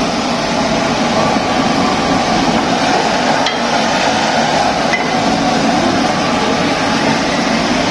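Diced chicken sizzling in a pan as it is sautéed, a steady sizzle, with a light knock of a utensil about three and a half seconds in.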